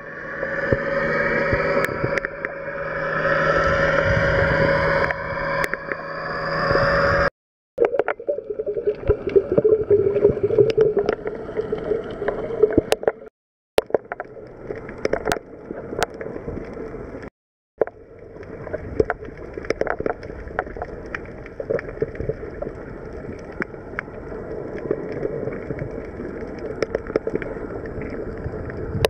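Underwater sound on a coral reef: a motorboat's engine and propeller drone with rising whines for the first several seconds, then muffled water noise with many scattered sharp clicks. The sound cuts off abruptly three times.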